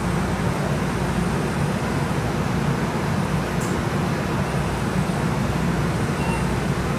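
Steady low hum and rumble inside a Siemens S70 streetcar standing at a stop with its doors open, with street traffic noise coming in. A short high beep sounds near the end.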